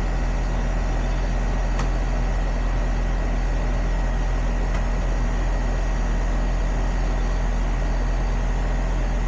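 Newly installed heat pump running: a steady low hum with a faint high whine over it.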